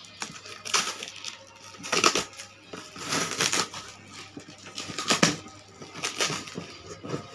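Cardboard box being torn open by hand, its flaps ripping and crackling in several rough bursts.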